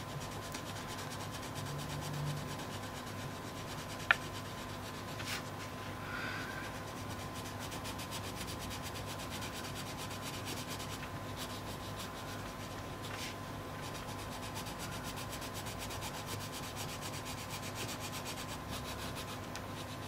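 Arteza Premium coloured pencil rubbing on paper in a steady run of quick back-and-forth strokes, laying down colour to darken the shading.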